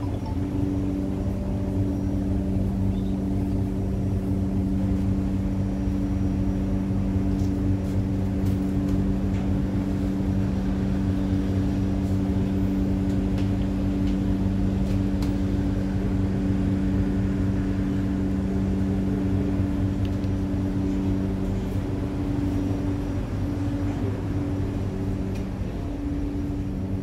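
Steady hum and low rumble inside an electric tram car, with a constant two-tone drone throughout.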